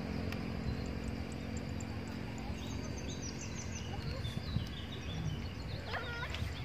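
Open-air ambience: a steady low wind rumble on the microphone. Small birds chirp in short rising and falling calls through the middle, and a brief high call sounds near the end.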